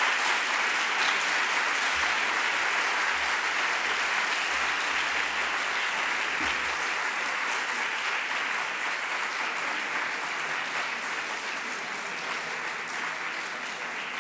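Large seated audience applauding steadily at the end of a talk, the clapping slowly fading toward the end.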